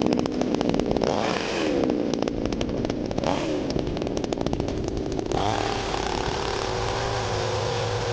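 Small two-stroke gas chainsaw running, its engine revving up and down through the first half and then holding a steadier pitch from about five seconds in.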